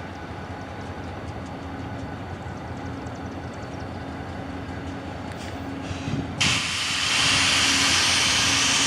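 VIA Rail P42 diesel locomotive and its train approaching with a steady engine rumble that slowly grows louder. About six seconds in a loud rushing noise sets in suddenly as the train passes close.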